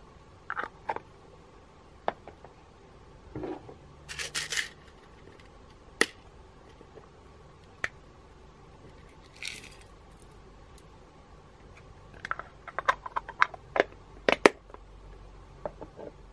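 Sequins, beads and glitter tipped from small plastic containers into a glass dish: scattered clicks and taps of plastic and sequins on glass, with two brief hissing pours. A quick run of clicks comes about three-quarters of the way through as a batch of sequins lands in the dish.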